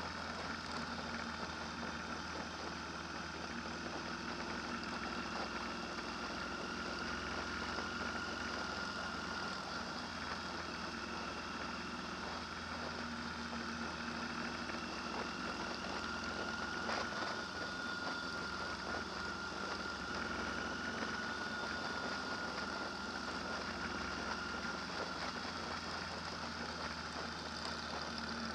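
An engine running steadily, with a steady high whine above a low hum.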